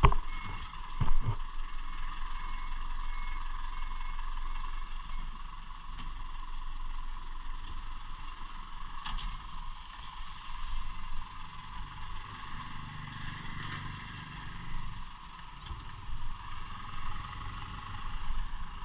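Fire truck driving on the road: steady engine and road noise, the engine's low rumble swelling for a few seconds past the middle, with a few sharp knocks and rattles.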